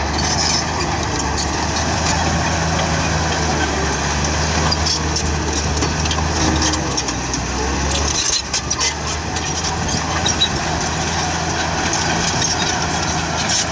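Komatsu D53 bulldozer's diesel engine running steadily, with scattered metallic clicks and clatter over it. About eight seconds in, the deep engine note drops and shifts to a different steady pitch.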